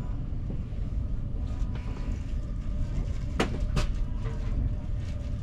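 Swiss SBB passenger train running, heard from inside the carriage: a steady low rumble with a faint hum. Two sharp clicks come in quick succession about three and a half seconds in.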